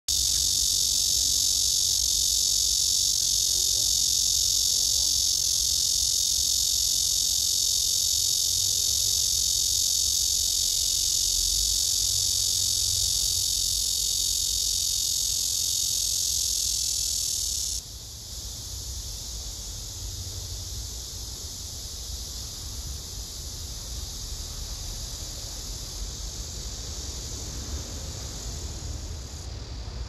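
Black cicadas (Cryptotympana atrata) singing: a loud, steady, high-pitched buzz that cuts off abruptly about 18 seconds in, after which a quieter steady buzz carries on.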